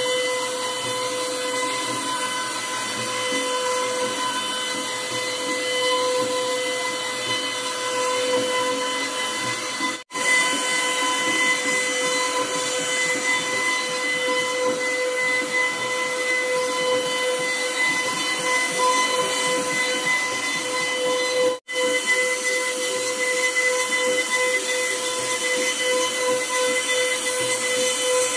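CNC wood router running: the spindle gives a steady high whine over the rushing noise of the bit carving a wooden panel. The sound cuts out for an instant twice, about a third of the way in and about three-quarters of the way in.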